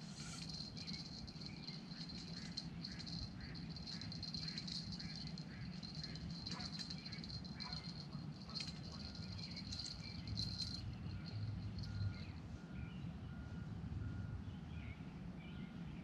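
Faint dawn birdsong: many short high chirps and calls, with a thin, evenly repeated call in the second half. A steady low hum runs underneath.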